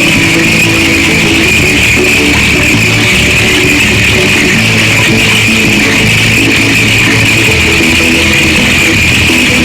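Background music with strummed guitar and bass, steady throughout, over an even hiss.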